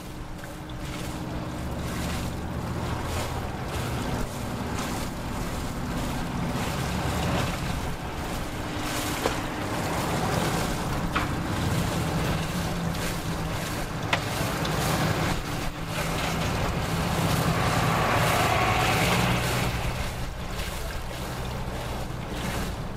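An engine idling with a low, steady hum, under wind buffeting the microphone, with a few sharp knocks partway through.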